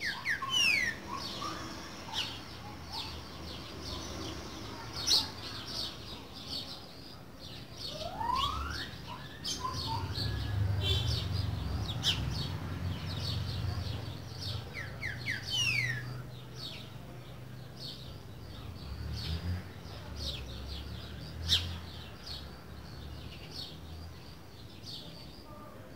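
Green-winged saltator (trinca-ferro) singing boiadeiro-style whistled phrases: falling whistles near the start and again a little past halfway, and a rising whistle about a third in, amid many short chirps. A low rumble runs through the middle stretch.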